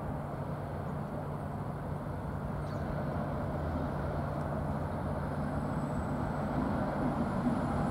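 Class 60 diesel freight locomotive approaching: a steady low engine drone under a wash of rumbling noise, slowly growing louder toward the end.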